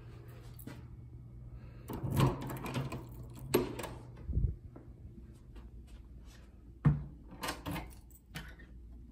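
Hotel room door being unlocked and opened: a string of clicks and knocks from the lock, knob and latch, with a low thump about four seconds in and the sharpest click near seven seconds, over a steady low hum.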